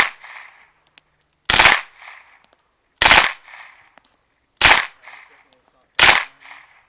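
Suppressed 9mm Heckler & Koch MP5K-PDW with a Gemtech MK-9K suppressor firing short bursts, about one every second and a half, each followed by a brief echo. One burst is ending as the sound begins, then four more follow.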